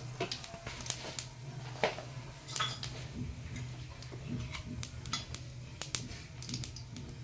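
Mustard and cumin seeds crackling in hot oil in a metal kadhai: scattered, irregular sharp pops as the tempering comes up.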